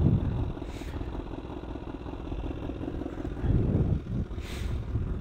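Honda CBR1000RR's inline-four engine idling through its Toce aftermarket exhaust, a steady low rumble that grows louder for a moment about three and a half seconds in.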